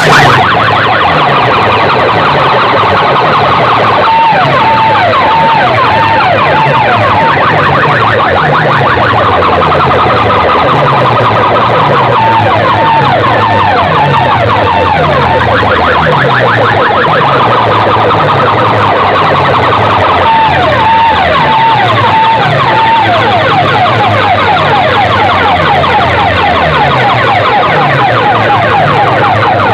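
Loud sound-system playback for a speaker competition: a steady pulsing bass beat with repeated siren-like sweeping tones over it.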